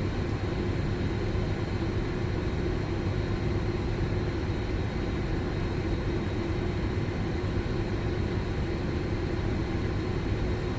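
Boeing 747-400 flight deck with the engines idling as the aircraft holds on the runway: a steady drone with one constant mid-pitched tone.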